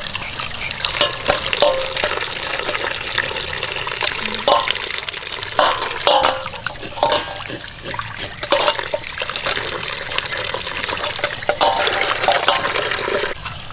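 Tap water pouring onto pork legs in a metal basin, with knives scraping the skin and scattered short scrapes and clinks.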